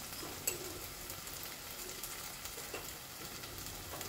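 Onion and tomato masala sizzling gently in a stainless steel pan, a steady fine crackle of frying. There is one sharp click about half a second in.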